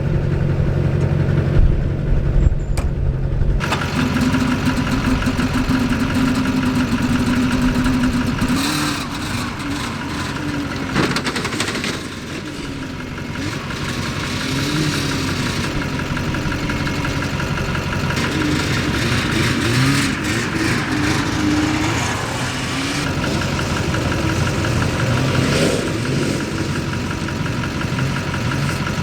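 Vehicle engine running, then revving up and down over and over, its pitch rising and falling repeatedly through the second half.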